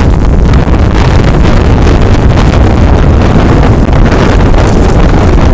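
Strong wind buffeting the microphone: a loud, steady low rumble that does not let up.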